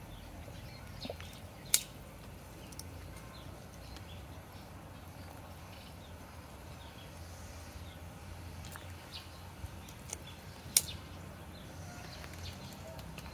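Quiet outdoor background with a low steady hum and faint bird chirps. Two sharp clicks stand out, one about two seconds in and one near eleven seconds.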